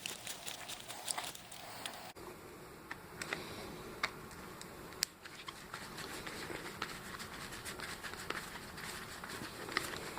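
Small scattered clicks and ticks of a hand screwdriver working a screw out of a car door lock actuator's plastic housing, with parts being handled. A faint steady hum sits underneath.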